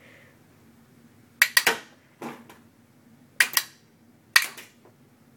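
Magnum 12 Nite Fighter rubber band gun firing a round of rubber bands: sharp snapping clicks in four bursts about a second apart, the first the loudest.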